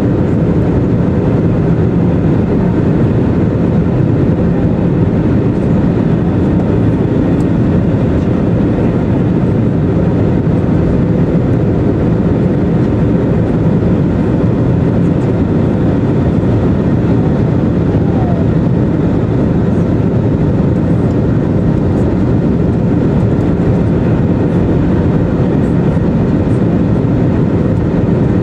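Steady in-flight cabin noise inside an Airbus A320neo: a low, even rush of airflow and engine noise from its CFM LEAP-1A engines, with a faint steady hum running through it.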